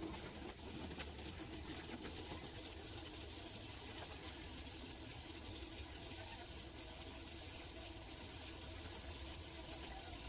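Kitchen tap running in a steady stream into a stainless-steel sink, with hands being washed under it.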